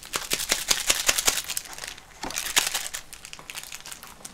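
Plastic instant-noodle packaging crinkling and rustling as it is handled and torn open, in two bouts of crackling: one through about the first second and a half, and a shorter one a little past two seconds in.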